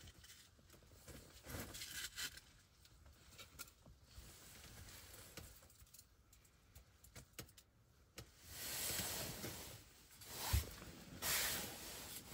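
Faint rustling and handling noise with scattered light taps; about two-thirds of the way in comes a longer rustle, then a single low thump and another short rustle.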